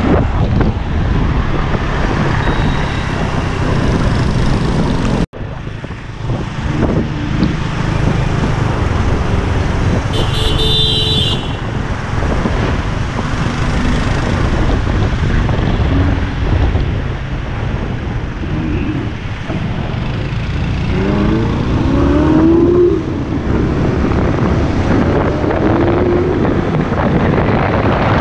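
Supercar engines running and revving in street traffic, with the revs climbing in several rising sweeps about two thirds of the way through. A short high-pitched beep sounds about ten seconds in.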